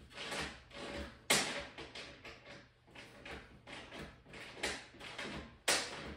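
A 9/16-inch wrench tightening a bolt and nylon locking nut on a metal panel: a run of irregular short metallic rasps and clicks, about two a second, with louder knocks about a second in and near the end.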